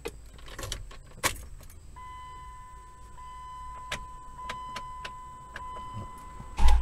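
Keys jangling on the ignition key ring of a 2001 Dodge Durango as the key is turned. About two seconds in, a steady high whine comes on, while the heater-control knobs click through their positions as the blower speeds are tested. A loud knock comes near the end.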